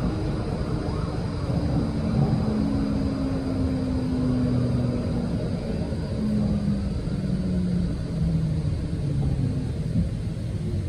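Electric tram running, heard from inside the passenger cabin: a steady low rumble with a low motor hum that steps down in pitch through the second half as the tram slows for a stop.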